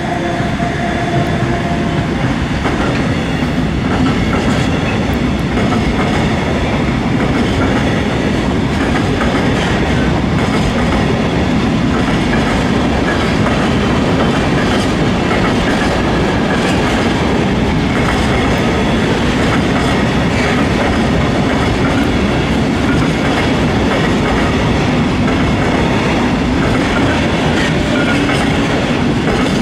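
Freight train of orange Wascosa hopper wagons rolling past a level crossing behind an LTE locomotive. The wagon wheels make a steady, loud rumble and clatter on the rails.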